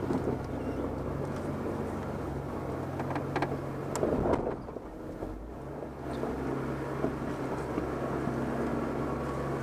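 Off-road 4x4's engine running steadily as it crawls up a rutted dirt trail, with a few knocks and scrapes about three to four seconds in; the engine note thins out briefly midway, then returns.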